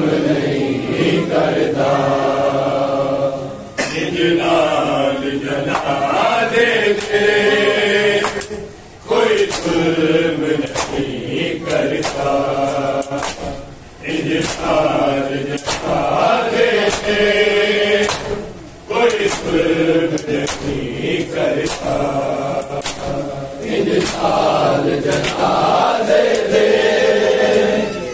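A group of men's voices chants a noha (Shia lament) in phrases of about five seconds with short breaks between them. Sharp slaps of matam chest-beating recur about once a second over the chant.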